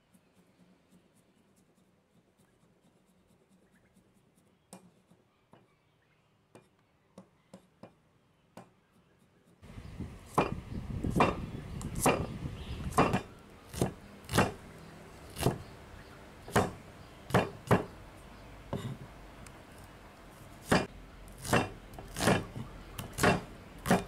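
A cleaver chopping red onion on a wooden cutting board: irregular sharp chops, roughly one or two a second. They start about ten seconds in, after a quiet stretch with only a few faint clicks.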